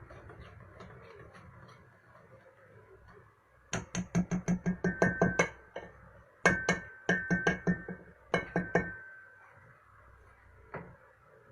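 A mixing utensil striking the side of a glass mixing bowl while stirring puto cake batter: three runs of quick clinks, about five a second, with the bowl ringing after the strikes, and one last clink near the end.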